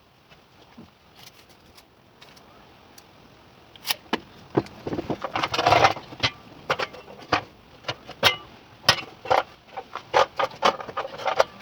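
Irregular sharp knocks and clicks, several a second and uneven in strength, starting about four seconds in after a quiet stretch.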